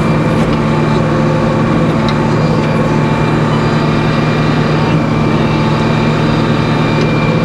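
Sawmill machinery running steadily with the log on the carriage: a constant low drone with a few steady tones, unchanged throughout.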